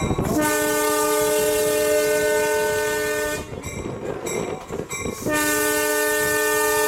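Diesel locomotive's air horn, heard from the cab, sounding two long blasts with a short break between; the second runs on past the end. Two long blasts as the train nears a road crossing is the opening of the standard grade-crossing signal.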